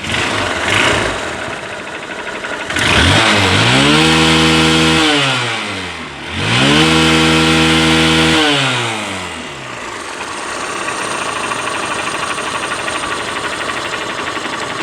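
Honda CB Trigger's 150 cc single-cylinder four-stroke engine idling, revved twice with the pitch rising, held about two seconds and falling back to idle each time, then idling steadily. It has just had a new timing chain and a tappet adjustment, and the mechanic says it now sounds as it did when new.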